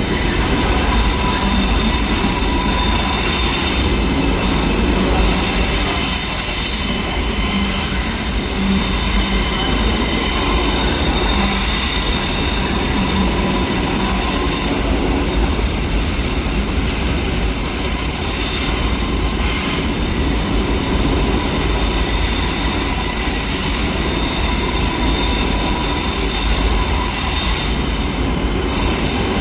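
A train's wheels squealing as it rolls slowly over the curved station tracks, several high-pitched squeal tones coming and going over a low rumble of the running gear.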